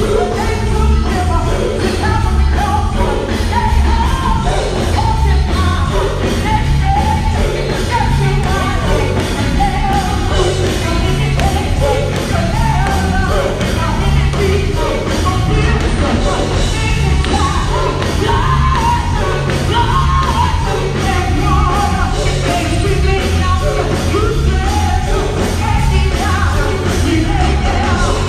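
Live gospel group singing with a full band: voices over a loud, pulsing electric bass and drums, with shouted vocal lines.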